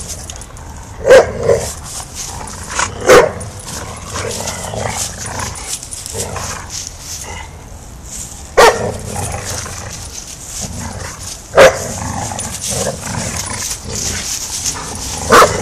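Dogs barking in play while tugging a toy: about six sharp barks at irregular intervals, two in quick succession about a second in, with scuffling in dry leaves between them.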